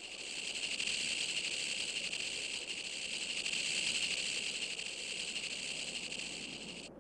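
Western diamondback rattlesnake's tail rattle buzzing steadily, a high continuous whir that stops suddenly near the end.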